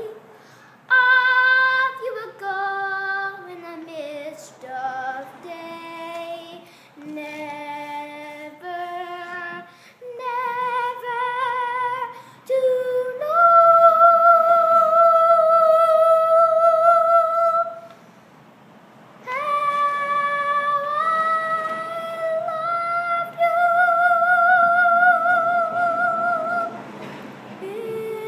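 A young girl singing unaccompanied: a run of short notes stepping downward, then two long held notes with vibrato.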